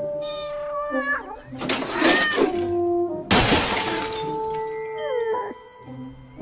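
A cat meowing, a few wavering calls in the first two seconds, then a loud crashing burst of noise a little after three seconds in, over background music.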